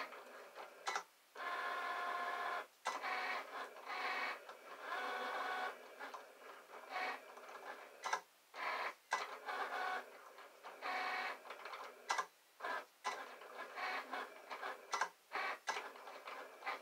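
Electronic vinyl cutting machine cutting a stencil: its motors whir in short and longer runs as the blade carriage and mat move, with brief stops between strokes.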